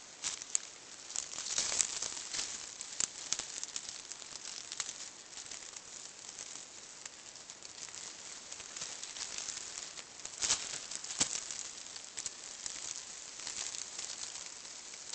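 Rattlesnake rattling its tail in a steady high buzz, the warning sound of a disturbed snake, with dry leaves crackling and crunching now and then, sharpest twice about ten seconds in.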